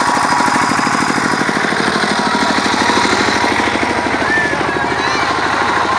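Helicopter rotor chopping in a rapid, even beat, loud and steady.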